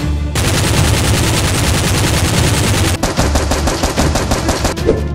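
Automatic-gunfire sound effect dubbed over toy-blaster shooting: a dense rattle of shots, then from about three seconds in distinct rapid shots at about ten a second.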